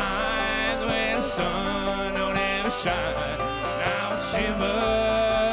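Bluegrass band playing live: acoustic guitar and banjo picking under a sung vocal line, with a long held note near the end.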